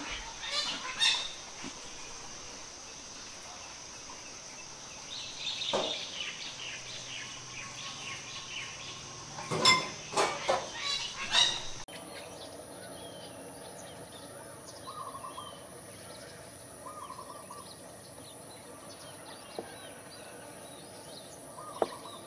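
Outdoor garden ambience of birds calling over a steady high-pitched insect drone, with the loudest run of calls a little before halfway. After a sudden change about halfway, a higher steady insect whine continues with scattered short chirps.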